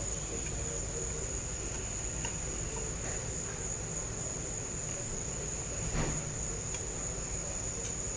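Steady, unbroken high-pitched chirring of insects such as crickets, with a brief soft sound about six seconds in.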